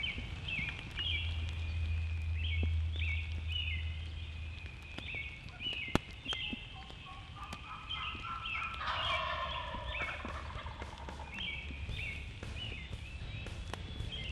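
Wild turkey gobbling once, about two-thirds of the way in, over small songbirds repeating short high chirping phrases throughout. A single sharp click sounds a little before the gobble.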